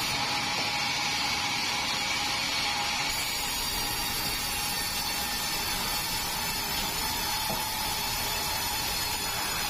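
Sawmill band-saw headrig running steadily, a constant mechanical noise with a held whine.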